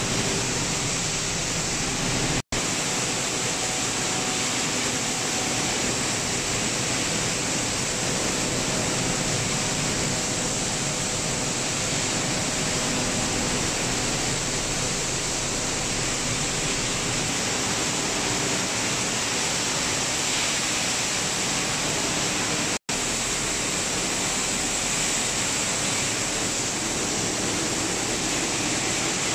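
Plastic-washing and water-treatment machinery running, with water pouring onto a stainless-steel vibrating screen: a loud, steady rushing noise with a faint machine hum underneath. The sound cuts out for an instant twice.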